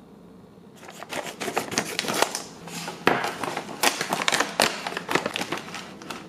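A foil blind bag being torn open and crinkled, then the clear plastic bags inside rustling: a dense run of crackles that starts about a second in.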